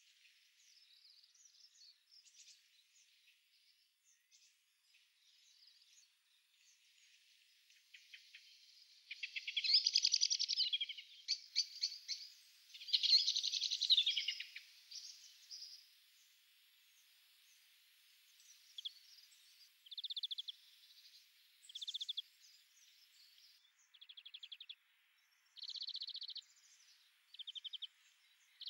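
European greenfinch nestlings begging with rapid, high chirping as a parent feeds them at the nest. Faint chirps at first, two loud bouts of begging about nine and thirteen seconds in, then a series of short chirping bursts toward the end.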